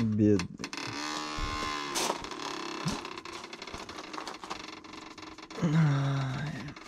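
Injured pit bull whining in long, drawn-out cries: a long one about a second in and a lower, louder one near the end, a sign of pain after being bitten in a dog fight.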